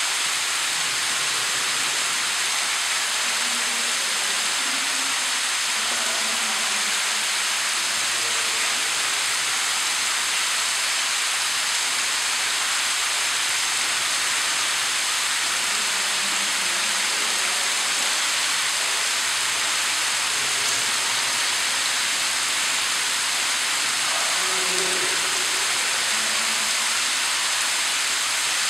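A steady, even hiss that does not change, with faint low sounds underneath it.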